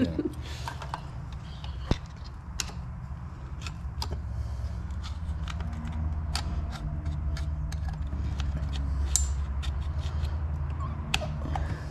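Scattered small metallic clicks and scrapes of a snap ring being worked into its groove with a small screwdriver, over a stiff spring's retainer in a Chrysler 727 transmission. A steady low hum runs underneath.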